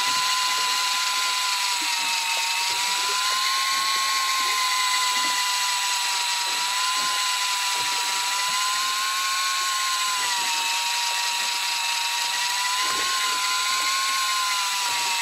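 Electric fishing reel's motor winding in line, a steady whine whose pitch wavers slightly up and down, as a hooked fish is hauled up from depth.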